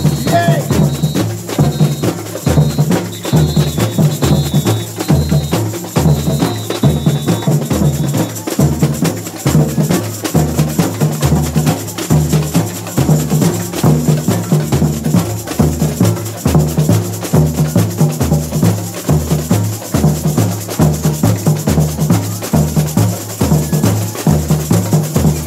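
Samba bateria drum section playing a steady samba groove: surdo bass drums beating about twice a second under dense, fast higher percussion.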